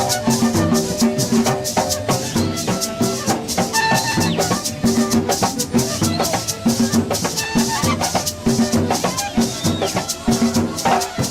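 Instrumental music driven by a fast, steady shaken rattle and drums, over a repeating melodic line and bass.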